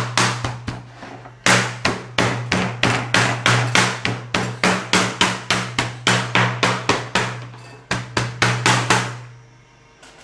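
Kitchen knife chopping fast and hard on a plastic cutting board, mincing burger patty meat into small pieces, about three to four strokes a second with a thud on each. There is a short pause soon after the start, and the chopping stops near the end.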